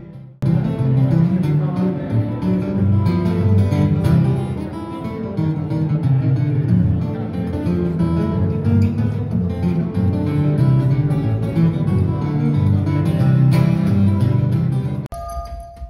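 Acoustic guitar played solo, a steady run of plucked notes and chords, miked on stage. It breaks off suddenly near the end.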